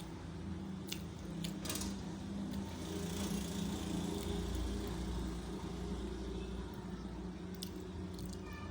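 A steady low mechanical hum, with a few short sharp clicks about a second in and again near the end.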